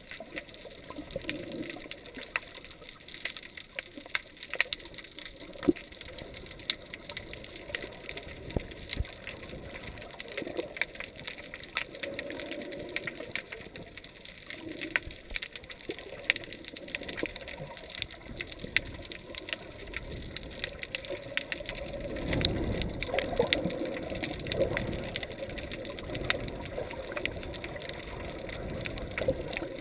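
Underwater sound picked up by a submerged camera: muffled sloshing and gurgling of water, with many sharp clicks and crackles throughout. The low water noise grows louder in the last third.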